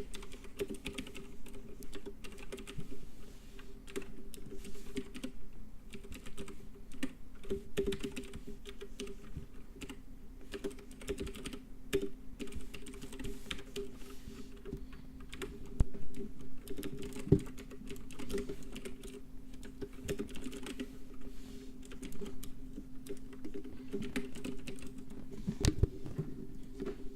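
Computer keyboard typing: a continuous run of rapid key clicks, with a few louder clacks now and then, over a steady low hum.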